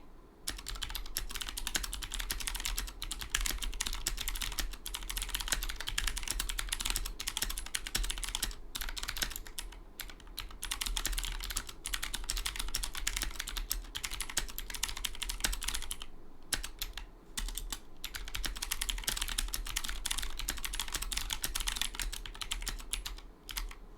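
Drop ALT mechanical keyboard with unlubricated Cherry Blue switches and no switch films, typed on in a fast, steady stream of key clicks, with short pauses about ten, sixteen and twenty-three seconds in.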